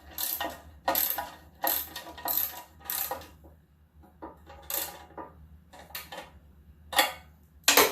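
Irregular metallic clicks and clacks as a lawn mower's carburetor and fuel tank unit is clamped back onto the engine. The clicks come quickly for the first three seconds, then more sparsely, and the sharpest clack is near the end.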